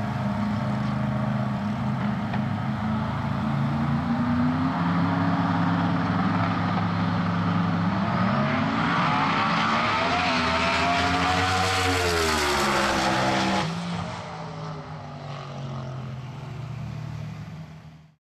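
Twin-turbo Mustang drag car's engine running steadily at low revs, then climbing in pitch and falling away again as the car moves past. A little over halfway through, the sound cuts suddenly to a quieter engine drone, which stops abruptly near the end.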